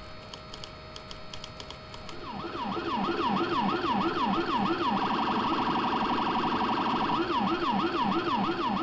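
Police car siren switched on about two seconds in: rapid repeated yelp sweeps, a faster pulsing tone for a couple of seconds in the middle, then the sweeps again. A matching low-pitched siren sweeps in step underneath, the low-frequency Rumbler siren played together with the conventional one.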